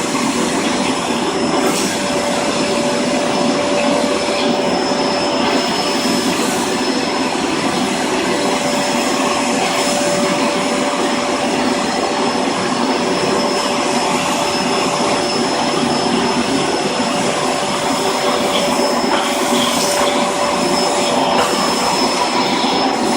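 Vacuum cleaner running steadily: a continuous rushing noise with a steady hum and a thin high whine.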